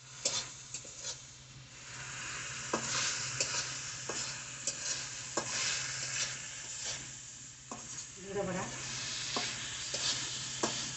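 Shrimp sizzling as they fry in oil in a metal kadai, stirred with a metal spatula that scrapes and clicks against the pan at irregular moments.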